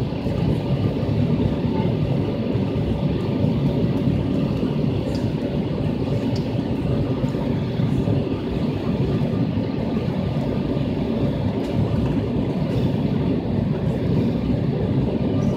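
Steady roar of jet engines and rushing air inside an airliner cabin, descending on approach with flaps extended.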